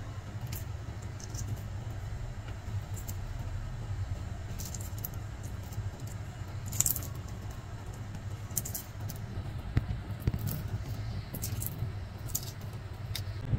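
Boiled quail eggshells cracking and being picked off by fingers: scattered small crackles and clicks, over a steady low rumble.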